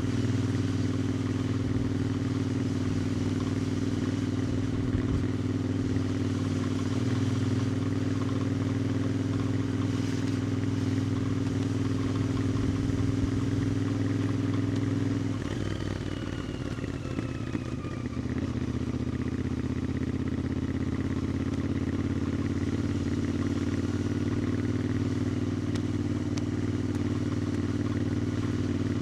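Royal Enfield Interceptor 650's parallel-twin engine and exhaust running steadily at cruising speed. About halfway through it eases off for a couple of seconds, then pulls steadily again.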